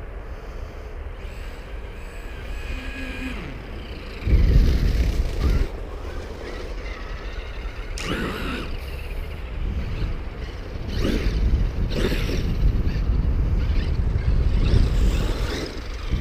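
Traxxas X-Maxx electric RC truck on paddle tires driving through snow and throwing up spray, its motor whining up and down as it speeds up and slows. Wind rumbles low on the microphone, in bursts that are loudest about four to five seconds in.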